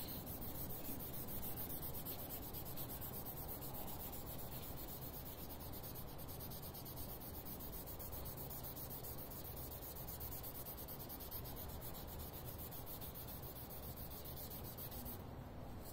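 Lead paint test swab rubbed back and forth on sanded paint and body filler of a car's steel body panel: a faint, steady scratchy rubbing, the 30-second rub that lets the swab react with any lead.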